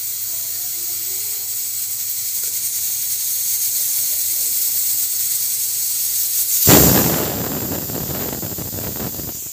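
A steady hiss, then about seven seconds in a pressure cooker whistles: its weight lifts and a loud rush of steam bursts out, fading over about three seconds. The whistle is the cooker releasing built-up pressure, and each whistle counts toward the dal and spinach being cooked.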